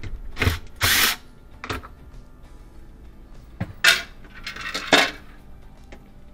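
Cordless drill-driver with a quarter-inch hex bit running in several short bursts, backing out hex-head screws from a refrigerator's evaporator cover.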